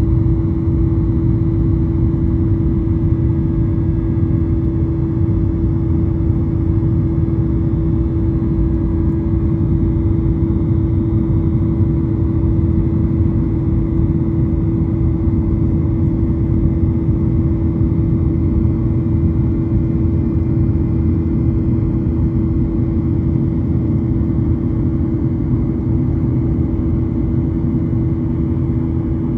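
Steady cabin noise inside a Boeing 737 airliner: a constant rumble of the engines and airflow with a steady droning hum, unchanging throughout.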